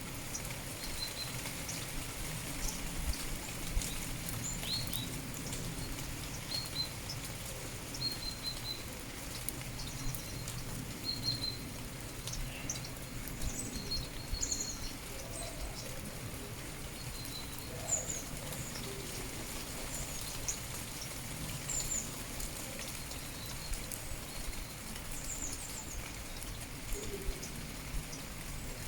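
Steady rain with scattered drips, and birds giving many short chirps and calls throughout, some brief level notes and some quick downward-sweeping chirps.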